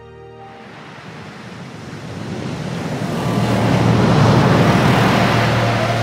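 Sound effect of surging, rushing water like a tsunami or heavy surf, swelling up over the first few seconds and then holding loud and steady with a deep rumble.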